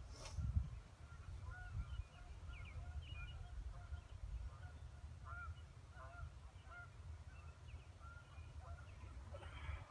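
Many short bird calls scattered throughout, over a steady low rumble. A single sharp knock sounds near the start.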